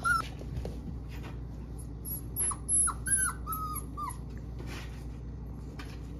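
Four-week-old puppies whimpering in short high whines, one right at the start and a run of about six between two and four seconds in, with a few faint taps between. The whining is a sign of stress at the slippery hardwood floor.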